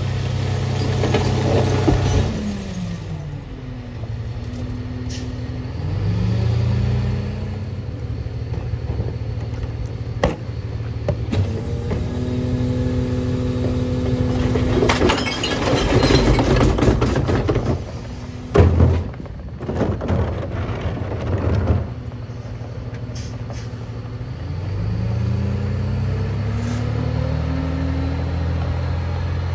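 Freightliner M2 McNeilus rear-loader garbage truck working: the engine speeds up and drops back for the hydraulic cart tipper and packer. In the middle a recycling cart is tipped into the hopper with a rattling clatter and a sharp bang. Near the end the engine rises steadily as the truck pulls away.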